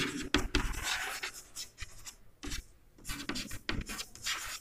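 Chalk scratching on a chalkboard as words are written out by hand: a run of short, irregular strokes with brief pauses between them.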